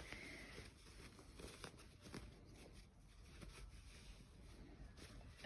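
Faint rustling and small ticks of lycra fabric being handled as long gathering threads are pulled through a line of long stitches to gather its edge; very quiet overall.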